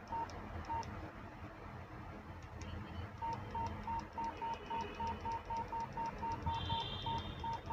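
Versa handheld two-way radio's keypad beeping as its buttons are pressed to step through the CTCSS tone menu: short, identical beeps with faint key clicks. There are a few spaced beeps at first, then a quick run of about four a second from about three seconds in as the tone values are scrolled.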